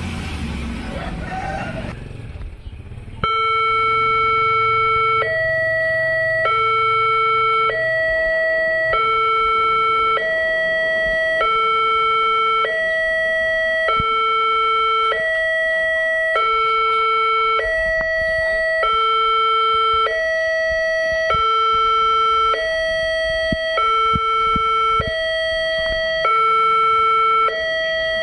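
A car drives past at the start. About three seconds in, an Indonesian railway level-crossing alarm starts sounding: a loud electronic warning that alternates between a lower and a higher tone, each held about a second, over and over.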